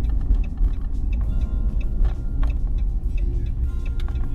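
Pickup truck driving, heard from inside the cab: a steady low engine and road rumble, with small rattles and clicks.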